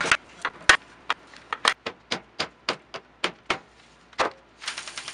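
Mallet blows, partly through a wooden dowel, knocking on the rusty end bell of an old Century electric motor to drive it off the frame: about fifteen sharp knocks at an uneven two to four a second. A different, steadier noise starts near the end.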